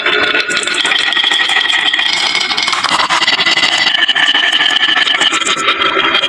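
Many marbles rolling and clattering down a HABA wooden marble-run slope: a dense, continuous rattle of clicks.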